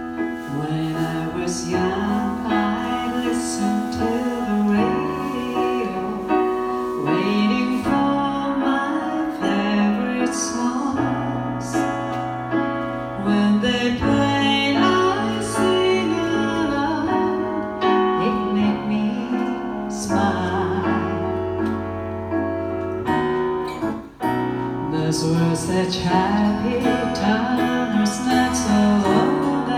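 Live band playing a song: a grand piano and an acoustic guitar accompany singing, with sustained chords over changing bass notes and a few sharp percussive hits.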